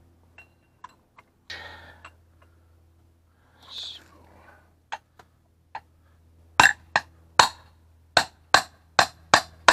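Small sledgehammer striking a steel drift punch to drive a Timken input bearing cup out of an NV4500 input shaft bearing retainer, through a washer welded into the cup. A few light taps as the punch is set, then about seven sharp metal-on-metal blows from about six and a half seconds in, coming faster.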